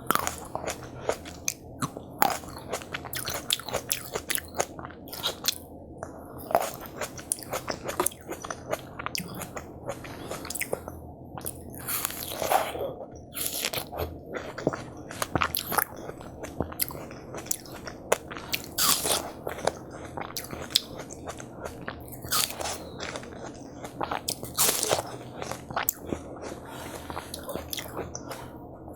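Close-miked biting and chewing of watermelon from a watermelon hwachae, with crisp crunches coming one after another.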